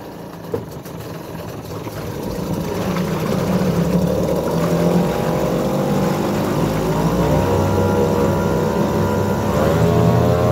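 Mercury 3.3 hp two-stroke outboard running in gear with its propeller in a water barrel, a short clunk just after the start, then the engine getting louder over the first few seconds. Its speed picks up in two steps, about two-thirds of the way through and again near the end.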